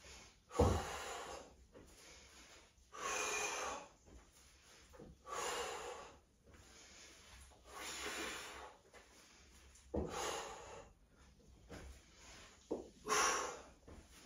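A person breathing hard during diagonal sit-ups: forceful exhalations, about six in all, one every two to two and a half seconds with quiet between.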